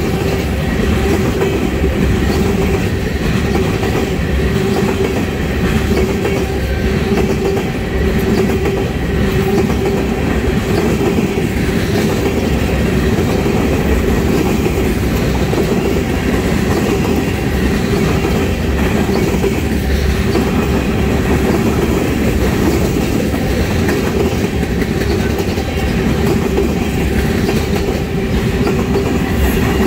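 Freight train of railroad tank cars rolling past close by: a steady loud rumble with the clatter of steel wheels over the rail, and a steady tone running through it.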